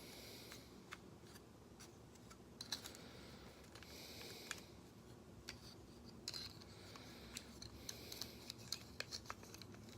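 Faint clicks and short scraping rustles of a plastic Transformers Combiner Wars Sky Lynx figure's parts being handled, rotated and snapped into place during its transformation, with a few sharper clicks scattered throughout.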